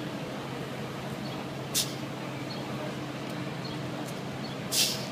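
A hybrid electric city bus idling at a stop with a steady low hum, amid street traffic noise. Two short, sharp hisses of air come about two seconds in and again, louder and longer, near the end.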